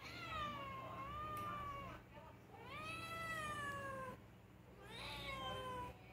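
A cat meowing three times, each meow long and drawn out, about a second and a half, sliding down in pitch toward its end.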